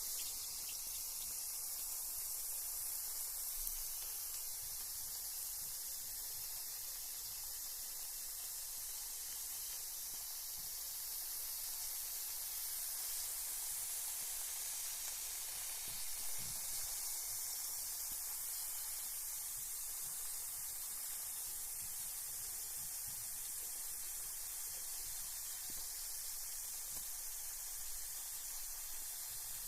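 Carbonated bath bomb fizzing in bath water: a steady high hiss of tiny bubbles, with a few faint pops and ticks.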